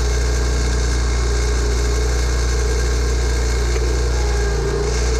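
Gravely Pro-Turn 52 zero-turn mower's engine running steadily, heard close up from the machine itself, its tone shifting slightly near the end.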